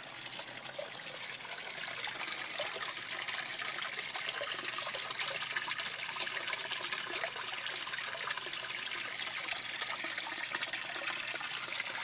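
Water trickling and splashing steadily in an aquaponics system's plumbing and tanks, growing a little louder over the first two seconds.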